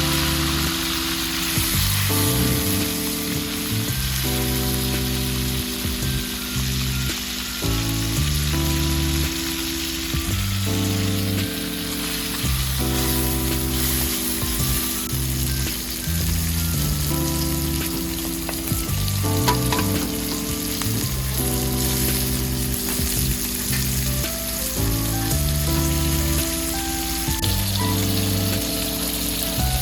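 Food sizzling steadily as it fries in a hot pan, with the occasional stir, over background music of held low chords that change every second or so.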